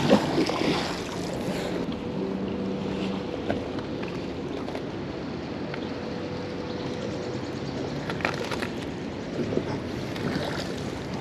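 A heavy fishing magnet on a rope splashing into the water right at the start, then steady wind and water noise with a faint steady hum while the rope is handled.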